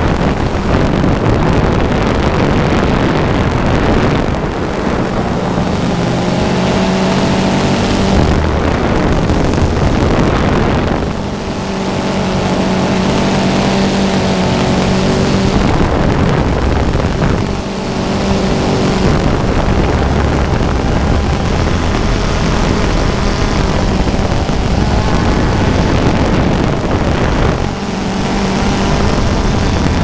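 Motor of the flying camera platform running steadily at a near-constant pitch, mixed with wind rushing over the microphone. The sound dips briefly three times, about 11, 17 and 27 seconds in.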